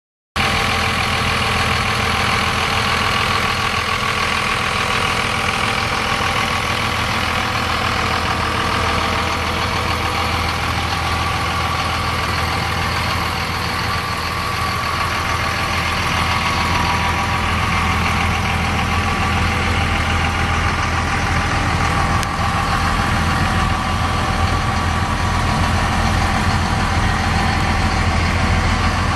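Cummins 5.9 L inline-six diesel engine of a 2001 Dodge Ram 2500 pickup idling steadily.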